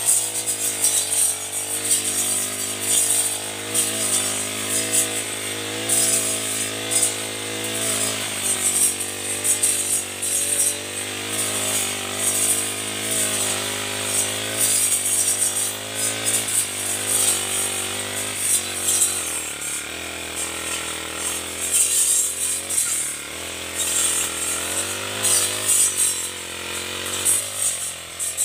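Backpack four-stroke brush cutter fitted with a round wood-cutting saw blade, running hard as the blade cuts through dense shrub stems. The engine pitch rises and sags again and again as the blade bites and frees, with a rattling, thrashing noise of cut vegetation over it.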